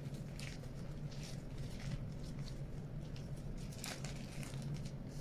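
A plastic bag rustling and crinkling softly while sticky cold porcelain dough of rice flour and white glue squishes as hands peel it out of the bag, in scattered faint crackles. A steady low hum runs underneath.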